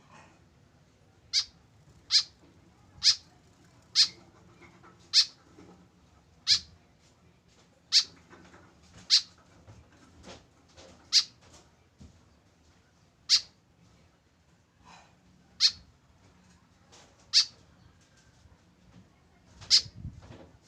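White-breasted woodswallow calling: a series of short, sharp, high-pitched calls, about one every one to two seconds.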